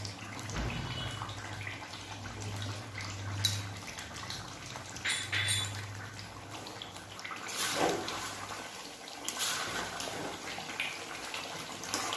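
Mutton curry gravy bubbling at the boil in the pot, with a few sharp clinks of a spoon against the pot.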